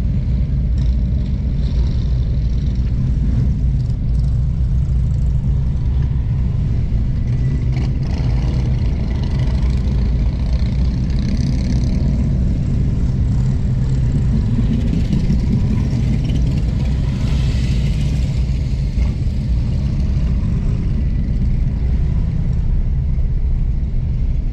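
Motorcycle engines and traffic rumbling, heard from inside a car crawling in rally traffic, with a steady deep rumble. Engine sound swells louder twice, about a third of the way in and again past halfway.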